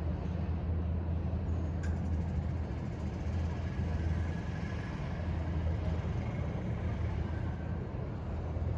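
Disney Skyliner gondola system running: a steady low hum with a faint whine above it, and a single click about two seconds in.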